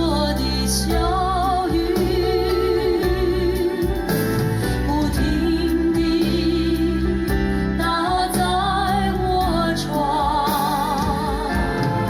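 Recorded Chinese pop ballad played back through IK Multimedia iLoud Micro Monitor speakers: a passage without lyrics, with a melody line carried in wide vibrato over steady bass and accompaniment.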